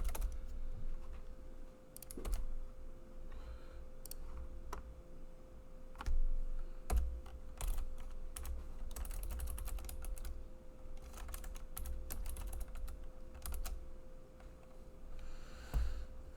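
Typing on a computer keyboard: irregular runs of key clicks with pauses between, over a faint steady hum.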